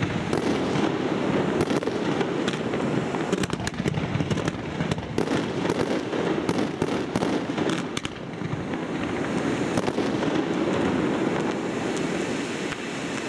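Firework fountains (gerbs) spraying sparks: a dense steady hiss with many sharp crackles and pops, easing briefly about eight seconds in.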